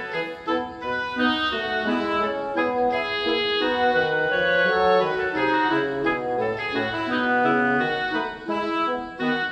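Instrumental background music: held keyboard chords under a moving melody.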